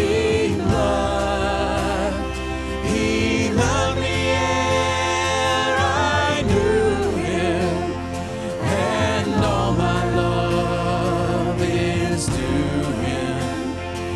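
Worship song: singers with a band, wavering sung notes over sustained bass and steady drum and cymbal hits.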